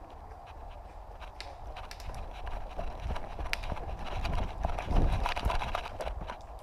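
Footsteps of a player moving quickly over woodland ground, with irregular knocks and rustling that grow louder and are heaviest about five seconds in.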